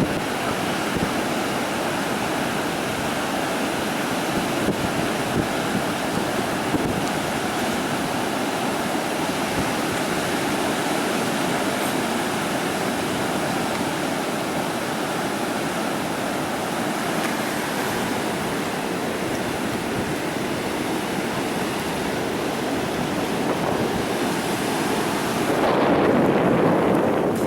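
Ocean surf breaking on a beach, a steady rushing wash, with wind on the microphone. Near the end the sound turns louder and duller.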